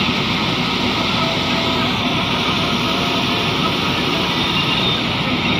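Combine harvester running steadily with its unloading auger turning while threshed wheat grain pours out of the spout into a trolley: a loud, even engine and machinery noise.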